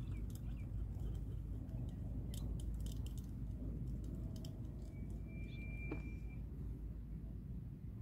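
Low wind rumble on the microphone, with a cluster of light clicks a couple of seconds in and a short steady high tone lasting about a second past the middle.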